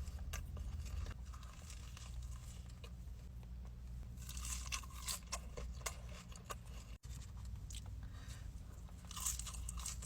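Close-miked chewing and crunching of a Chick-fil-A Smokehouse BBQ Bacon chicken sandwich, in irregular crisp crunches that come thickest about four to six seconds in and again near the end, over a steady low hum.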